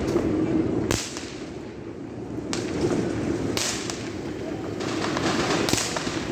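New Year fireworks going off: a handful of sharp bangs spread irregularly, with crackling between them.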